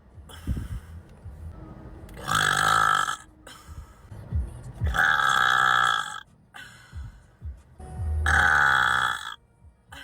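A person burping loudly three times in a row, each burp about a second long.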